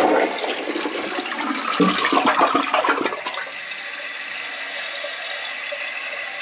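Newly installed one-piece toilet flushed with its chrome trip lever: a rush of flushing water for about three seconds, then the tank refilling with a steady hiss from the fill valve as its refill tube runs into the overflow tube.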